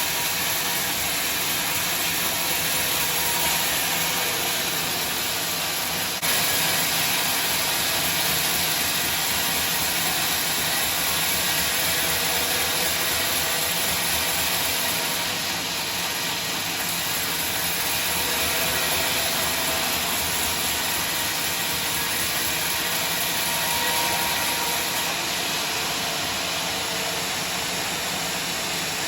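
Sawmill machinery running steadily, a loud hissing noise with a faint hum, stepping up slightly about six seconds in.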